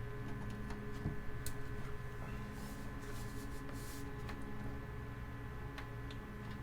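Desktop gaming PC running with a steady, many-toned hum, with a few faint clicks.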